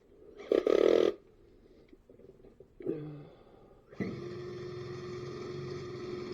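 An electric drill running steadily for a little over two seconds in the second half and stopping suddenly, likely enlarging a mounting hole that was too small. About half a second in there is a loud, short, noisy sound.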